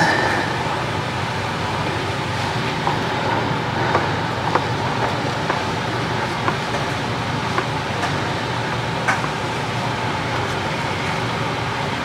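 Steady mechanical whir with a faint hum beneath it. Light clicks and taps come roughly once a second as hands work at the bell housing inspection cover under the car.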